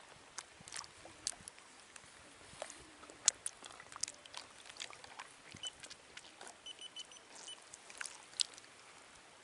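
Faint small lapping and splashing of reservoir water around a wader, in scattered irregular ticks. About seven seconds in come a few faint high chirps.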